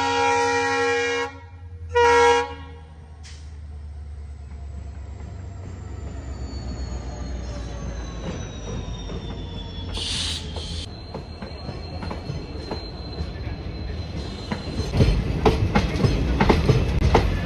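Indian Railways diesel locomotive sounding its horn twice, a longer blast and then a short one about two seconds in, followed by the steady low rumble of its engine as it runs past close by. Near the end the wheels clatter over the rail joints, getting louder.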